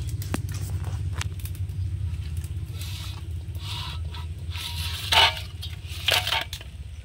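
Metal plate scraping and clattering against the rim of a steel pot as crisp fried goja pastries slide off it into sugar syrup. There are scattered light clicks, and two louder scrapes about five and six seconds in, over a steady low hum.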